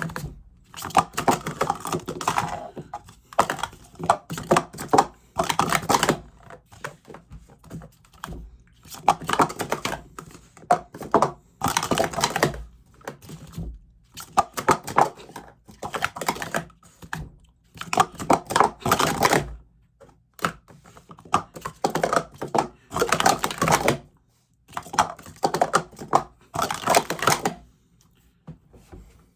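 Plastic sport-stacking cups clacking as they are rapidly stacked up and down on a mat, in about seven quick bursts of clatter with short pauses between. The cups are new and feel stiff to the stacker.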